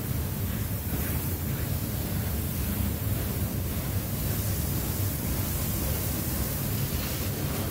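Freight train rolling past at close range: a steady low rumble of steel wheels on the rails as the cars go by.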